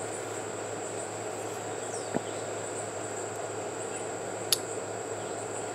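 Steady high-pitched insect trill over a low outdoor hiss, with two faint short clicks, about two seconds and four and a half seconds in.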